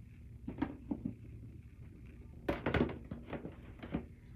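Fidget toys being handled and set down: a few light knocks, with a louder cluster of clatters about two and a half seconds in.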